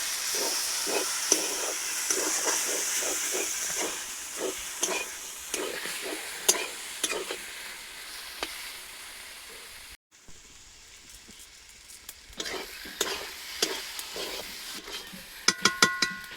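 Kachu (taro) frying in a pan while being stirred: a sizzle with repeated stirring strokes, the sizzle fading after about four seconds. About ten seconds in the sound breaks off suddenly, the stirring strokes go on, and near the end come several quick, ringing metallic clinks.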